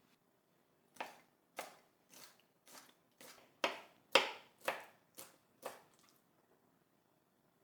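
Knife chopping on a cutting board: about ten strokes, roughly two a second, then it stops.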